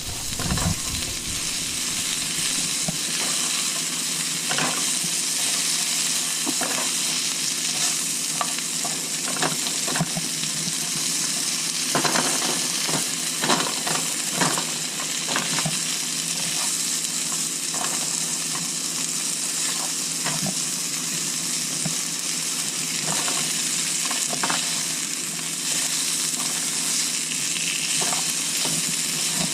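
Sliced prickly pear cactus pads (nopales) sizzling steadily in butter in a frying pan as they turn gooey, with scattered clicks and taps of a utensil against the pan as they are stirred.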